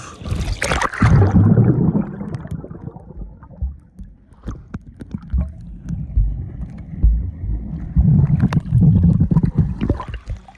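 Water sloshing and splashing against a river raft, in two loud muffled surges with scattered knocks.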